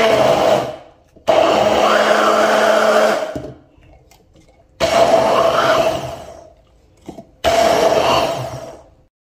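Stick blender run in short pulses in a plastic jug of pumpkin cake batter: four bursts of one to two seconds, each starting abruptly and trailing off as the motor spins down.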